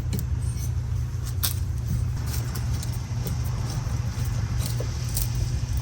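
Faint, scattered metal clicks as screws and hinge-step hardware are threaded in by hand, over a steady low rumble.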